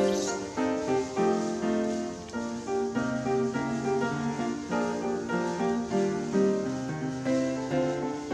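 Instrumental background music: a melody of held notes that change every half second or so.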